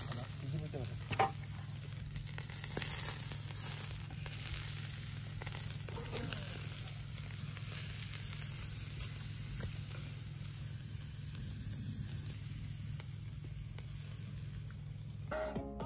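Beef steaks sizzling on the grate of a charcoal kettle grill, a steady hiss, with one sharp click about a second in.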